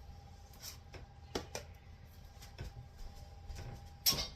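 Soft, scattered clicks and knocks of a utensil against a bowl and soup can while soup is spooned out, with a louder knock near the end. A faint steady hum runs underneath.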